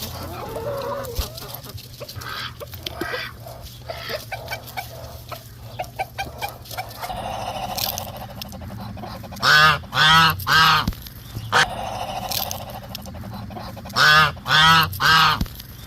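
Muscovy ducks calling: two groups of three loud, short calls in quick succession, the first about nine and a half seconds in and the second near the end. Softer scattered clicks and quieter calls come before them.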